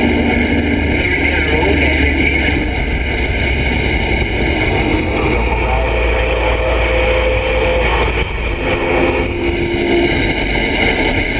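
CB radio receiver tuned to channel 19 (27.185 MHz) putting out loud, steady static with a low hum and a weak, garbled signal underneath.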